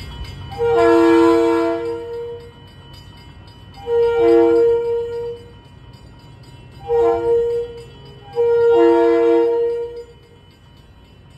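Kawasaki M8 electric multiple unit's air horn sounding four blasts, long, long, short, long, each a steady chord of several notes. This is the standard grade-crossing signal for a train approaching a road crossing.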